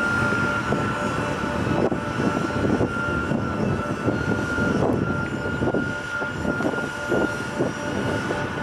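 AgustaWestland AW139 helicopter on the ground with its turbine giving a steady high whine, over a fluctuating low rumble.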